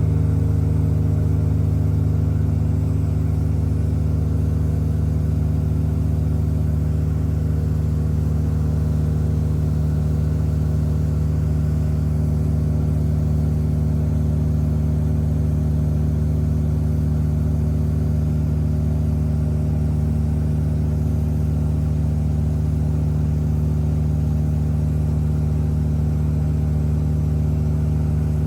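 Tour boat's engine running steadily at cruising speed, a constant low drone with an even pitch.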